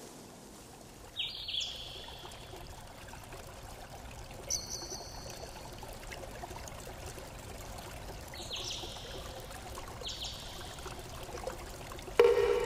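Liquid pouring and trickling steadily, with a few short high chirps and a sudden louder sound near the end.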